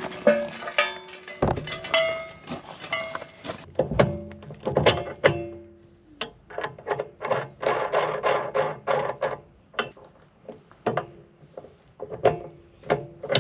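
Steel parts of a log arch clanking and knocking as it is being hooked up, a string of irregular hits, several of them ringing briefly.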